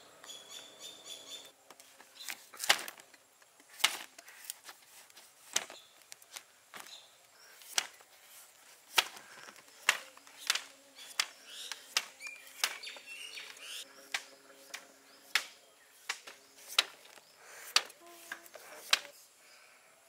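Large knife paring the skin off a green papaya: a steady run of crisp, sharp cuts, one or two a second, starting about two seconds in. Birds chirp briefly at the start.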